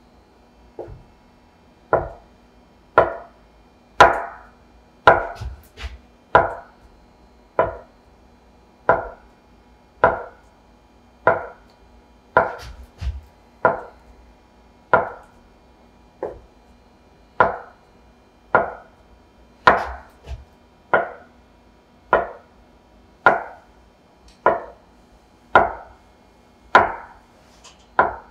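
Chef's knife cutting a rope of potato gnocchi dough into pieces on a wooden counter, each cut ending in a sharp knock of the blade on the wood, in a steady rhythm of about one a second.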